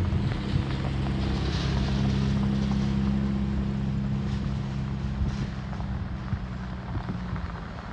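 A car engine running at a steady low speed, a deep hum that is loudest a couple of seconds in and fades away near the end.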